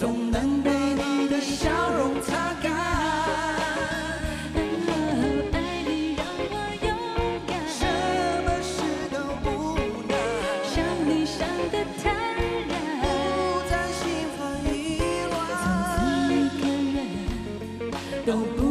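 Live pop song: a female singer and male singers singing into microphones over a backing band.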